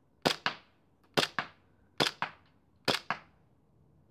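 Tokyo Marui Glock 18C gas blowback airsoft pistol firing four semi-auto shots, about one a second. Each shot is a sharp double crack.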